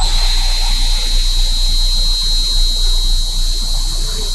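Park Industries Voyager XP CNC bridge saw cutting a stone remnant wet with its 18-inch diamond blade: a steady high whine over a loud hiss, starting suddenly as the blade bites into the stone.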